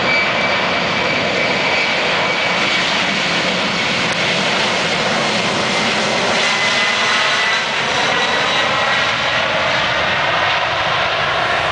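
Boeing 767-300 jet engines running at high power as the airliner rolls past on the runway: a steady, loud jet noise with a high fan whine that drops slightly in pitch about halfway through as the aircraft passes.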